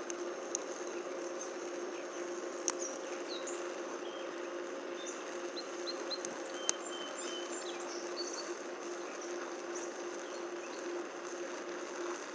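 Oxy-acetylene welding torch flame hissing steadily on a stainless steel butt weld, with a few sharp pops. Faint bird chirps can be heard behind it.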